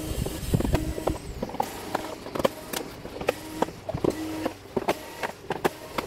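Electric screwdriver whirring in several short bursts as it backs out the screws of a TV's plastic back cover. Many clicks and clatters of the driver, screws and plastic panel come in between.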